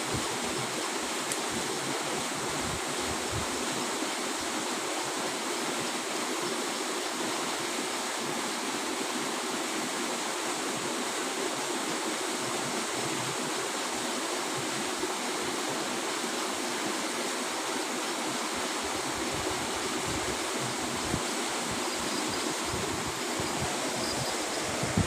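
A mountain river's water rushing steadily over rocks, a continuous even hiss.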